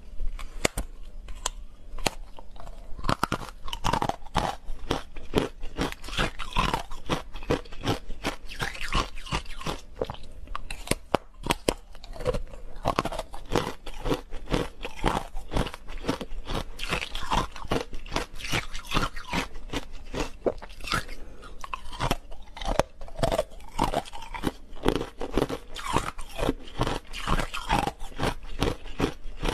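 Ice dusted with matcha powder being bitten and chewed, a dense, continuous run of cracks and crunches.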